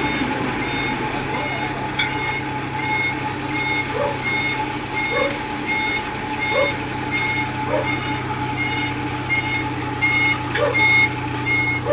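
A vehicle reversing alarm beeping evenly, about three beeps every two seconds, over the steady running of a diesel engine as a road roller is loaded onto a flatbed truck. There is a sharp click about two seconds in and another near the end.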